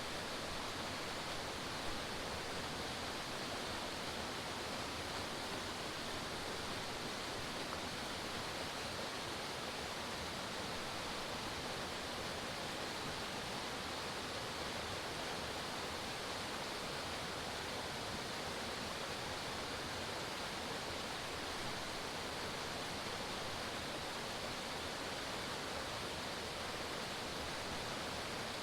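Forest waterfall, water pouring and splashing in a steady, unbroken rush.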